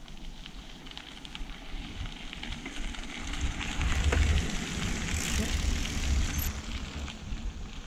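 Mountain bike tyres crunching and crackling over a dirt-and-gravel trail as a rider comes past close by, louder for a few seconds from about halfway in, with low wind rumble on the microphone.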